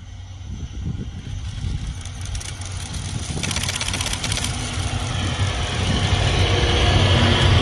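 An EF65 electric locomotive hauling a passenger train approaches and passes close by. A steady low hum and the rolling noise of the train grow louder throughout, with a quick run of wheel clicks as the locomotive goes past about three and a half seconds in.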